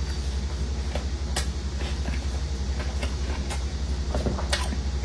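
Chewing and mouth sounds while eating a rou jia mo: a few sharp, crisp clicks over a steady low hum.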